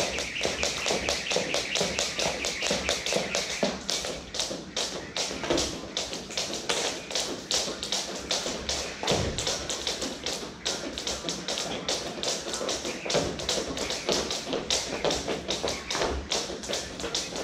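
Skipping ropes slapping the floor in a fast run of overlapping taps, with feet landing, as two or more people skip rope at once. An occasional dull thump is heard, about nine seconds in.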